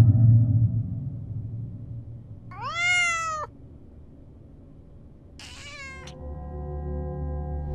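A domestic cat meows: one long call that rises and then falls, about a second long. A shorter call with falling pitch follows a couple of seconds later. A low steady drone then builds toward the end.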